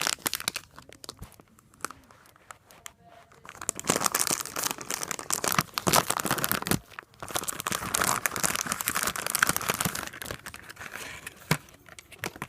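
Packaging being torn open and crinkled by hand, a quieter patch near the start, then steady crinkling and tearing for most of the rest.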